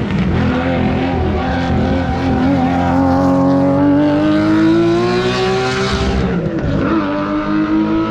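Race car engine at full throttle on a hillclimb course, its note climbing steadily for several seconds, dipping briefly about six and a half seconds in, then holding high again.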